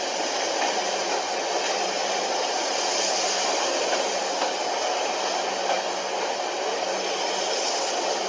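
Moving passenger train, a steady rushing hiss with a few faint clicks.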